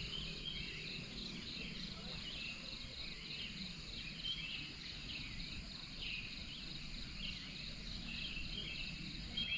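Crickets trilling in a steady high drone, with scattered short chirps just below it and a faint low rumble.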